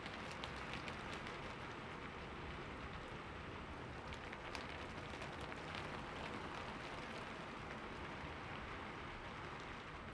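Steady rainfall, a continuous hiss with scattered individual drops ticking on a surface.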